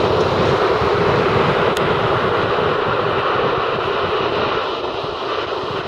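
Sea waves breaking and washing up on a sandy shore: a steady rush of surf that eases slightly near the end.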